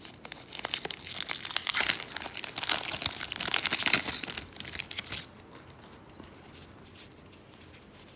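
Wrapper of a 1992 Topps baseball card pack being torn open and crinkled by hand, stopping about five seconds in.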